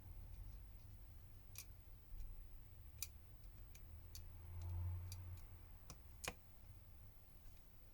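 A handful of light, sharp clicks and ticks from small phone parts and tools being handled during smartphone reassembly, spaced irregularly, the loudest about six seconds in, over a faint low rumble of handling.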